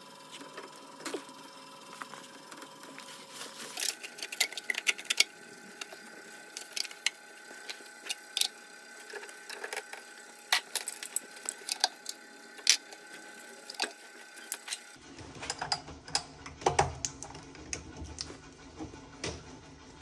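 Irregular clicks and light metallic knocks of copper pipe and fittings being handled and pushed together, over a faint steady hum.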